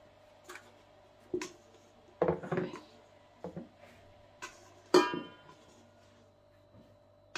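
A bowl and kitchen utensils knocking and clinking as bread dough is handled and moved into an oiled bowl: scattered light knocks, a cluster of them a little after two seconds, and the loudest, a ringing clink, about five seconds in.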